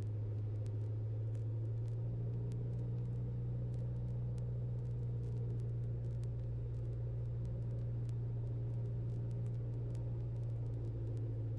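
Steady low drone of a Cessna 172's four-cylinder piston engine and propeller, heard through the cockpit intercom during the approach to land.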